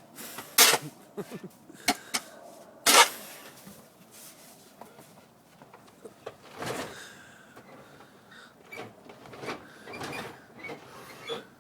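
Several sharp knocks in the first three seconds, the loudest about three seconds in, followed by softer scattered knocks and rustling.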